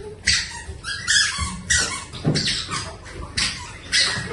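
A run of short, raspy duck-like quacks, about five in a row with gaps between them.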